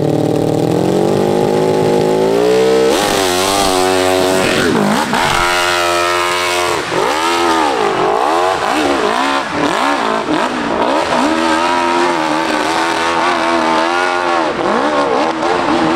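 A custom hillclimb racing motorcycle engine revs with a rising pitch, then launches hard about three seconds in and climbs the hill, its pitch swooping up and down again and again as the throttle is worked.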